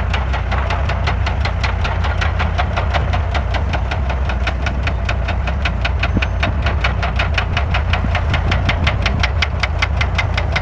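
Komatsu D155A bulldozer's diesel engine running with a steady deep rumble under a rapid, even metallic clatter of about five strokes a second.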